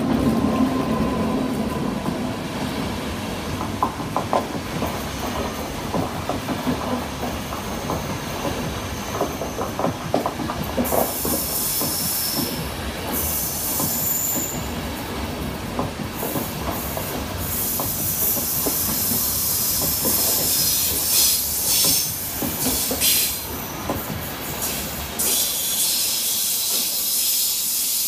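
Long passenger train hauled by an electric locomotive running through a station. Its wheels rumble and click over the rail joints, and from about halfway through a high-pitched wheel squeal and hiss rise as the coaches go by.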